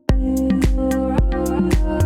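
Background music: a new piece starts suddenly at the very beginning, with sustained notes over a steady beat.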